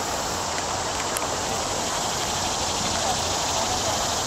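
Steady outdoor background hiss with faint, distant voices of people out on the river.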